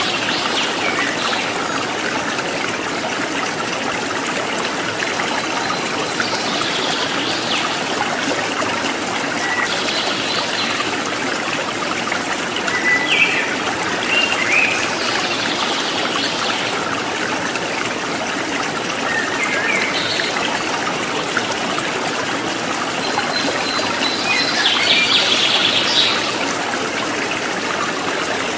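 Steady running water with short bird chirps every few seconds, and a longer run of chirping near the end.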